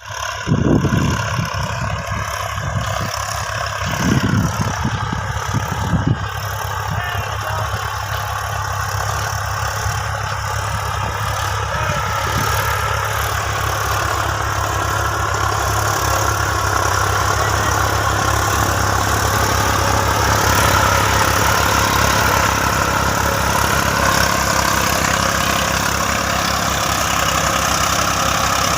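Massey Ferguson tractor's diesel engine running steadily, with a few louder thuds in the first six seconds, then slowly growing louder.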